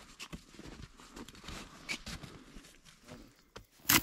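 Scattered soft rustles and crunches of someone moving about in snow, with one sharp knock near the end.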